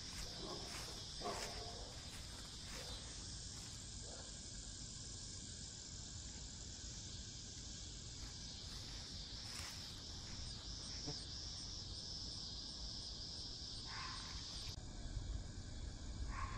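A steady, high-pitched insect chorus that pulses for a while, then cuts off abruptly near the end, with a few soft rustles and taps over it.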